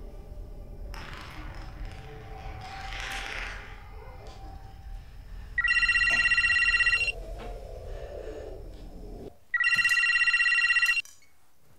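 Mobile phone ringing twice, each ring a trilling electronic tone about a second and a half long, the second starting about four seconds after the first. Beneath the first ring runs the low rumble of a film playing on the TV, which stops shortly before the second ring.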